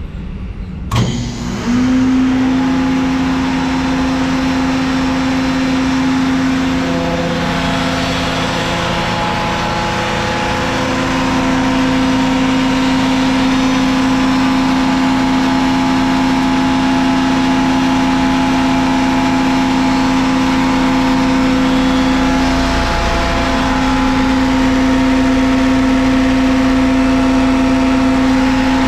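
A Compair Cyclon 100 HP rotary screw air compressor starts about a second in, its 480 V electric motor spinning up with a quick rising tone, then runs steadily with a loud hum over a broad hiss. The hum briefly wavers in pitch twice.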